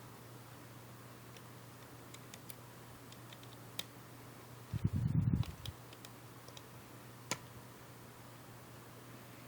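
Faint scattered clicks and ticks of a hex key working small screws out of an airsoft rifle's spring assembly, with a muffled low bump about five seconds in.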